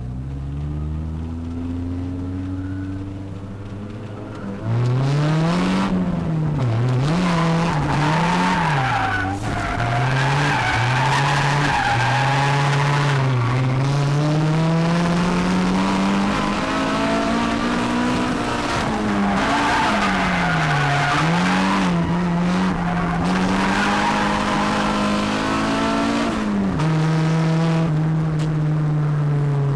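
Toyota AE86 drifting, heard from inside the cabin: the engine revs climb and drop again and again as the throttle is worked, over tyres squealing. About four and a half seconds in it gets suddenly louder. Near the end the revs settle to a steadier note and fall away.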